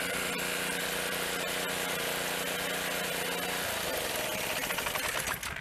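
A vehicle engine running steadily, its pitch dropping about two-thirds of the way through.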